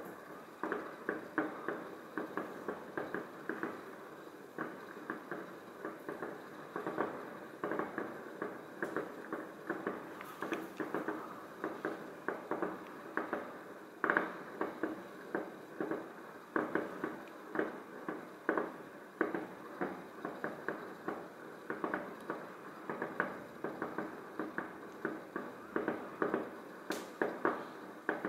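Distant fireworks going off in quick succession: a steady run of pops and bangs, two or three a second, each dying away fast, with a louder bang about fourteen seconds in.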